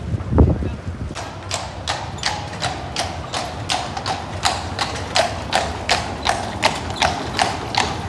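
A carriage horse's hooves clip-clopping on cobblestones at a steady walk, about three strikes a second, starting about a second in. A single low thump comes just before the hoofbeats begin.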